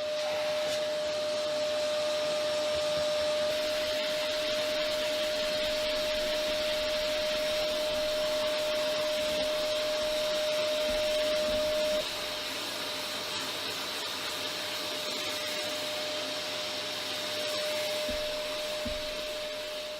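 A small electric motor running steadily, a whirring hiss with a constant high whine. About twelve seconds in, the whine fades sharply and the sound gets a little quieter.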